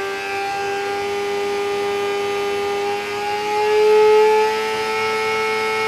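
Racing car engine running at high revs under load on a dynamometer test bed, a steady multi-toned whine whose pitch creeps slowly upward, with a brief swell in loudness near the middle.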